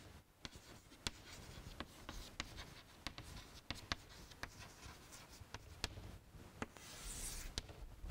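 Chalk writing on a blackboard: faint quick taps and short scratches as letters are written, then one longer scrape near the end as the heading is underlined.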